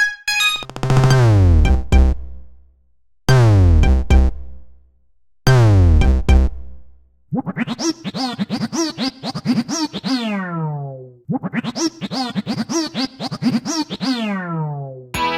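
Android stock (AOSP) ringtone: a synthesized electronic tune that opens with three falling pitch sweeps over a deep thump, then plays two longer runs of quick notes sliding downward. Another ringtone starts just before the end.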